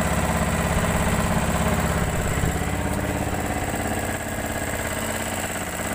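Outrigger fishing boat's (bangka's) engine running steadily with a fast even throb, a little quieter in the second half.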